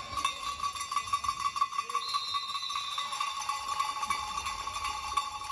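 Handheld cowbell shaken rapidly and without pause, a fast, even clanging at one steady pitch.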